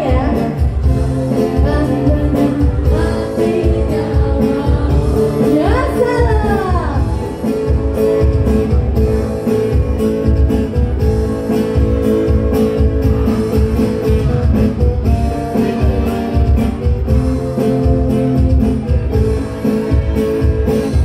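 Live band music played loud through a PA sound system: singing over guitar and a steady low beat.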